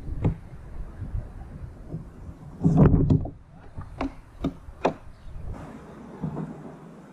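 Scattered knocks and clunks on a plastic kayak as a hooked bream is brought aboard. The loudest is a dull thump about three seconds in, followed by a few sharp taps a second or two later.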